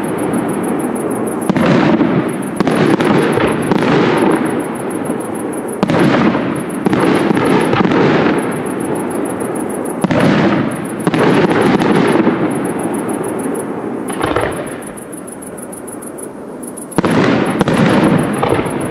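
Aerial firework shells bursting one after another, each a sudden bang followed by a lingering echo. A quieter lull comes about two-thirds of the way through, then another burst near the end.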